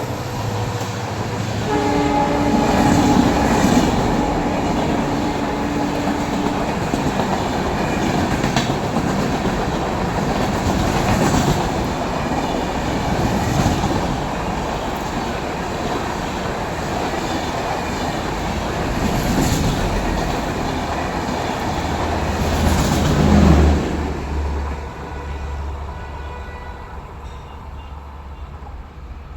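Express passenger train passing at speed: coaches rumbling, with wheels clacking sharply over rail joints every few seconds. The locomotive's horn holds a steady tone for a few seconds near the start. The rumble peaks at about 23 seconds, then fades as the train moves off.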